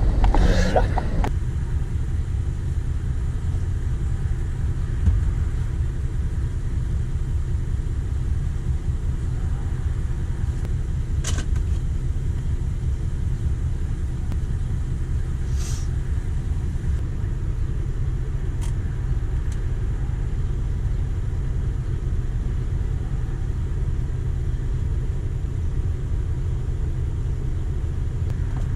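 Car engine idling with a steady low rumble, with a few faint clicks scattered through.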